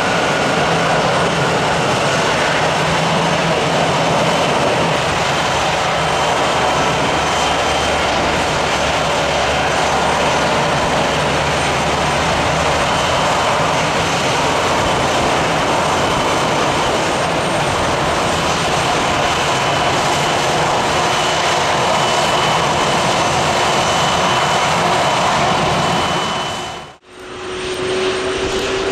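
Airbus A320-214's CFM56-5B jet engines running at taxi power, a steady rush with a faint high whine. Near the end the sound drops out briefly and comes back with a slowly rising engine tone as the aircraft begins its takeoff.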